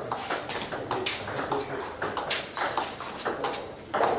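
Table tennis rally: the celluloid ball clicking sharply off the rackets and bouncing on the table, about three clicks a second, with a louder hit near the end.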